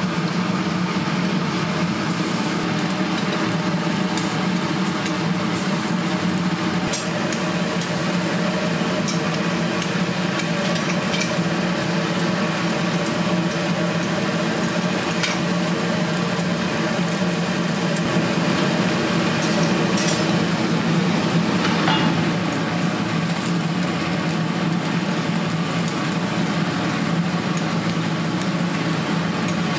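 Food sizzling and being stirred in a hot pan, with scattered clicks of a metal utensil over a steady low hum.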